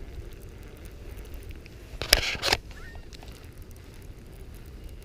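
Outdoor riverbank ambience: a steady low wind rumble with a few faint wild bird calls. About two seconds in, a loud rushing noise burst lasts about half a second.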